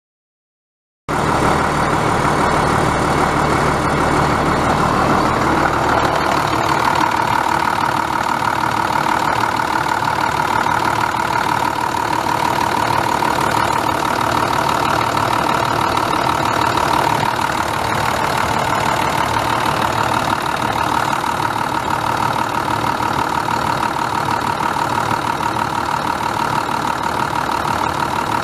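International DT466 7.6-litre inline-six turbo diesel in a 2001 International 4900 dump truck, idling steadily. The sound cuts in abruptly about a second in, and its deep rumble drops away somewhat around six seconds in.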